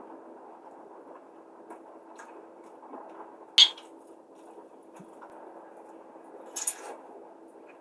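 Eating at the table: soft handling and eating noises, with a sharp clink of a spoon against a bowl about three and a half seconds in and another brief clatter of utensil on dish near seven seconds.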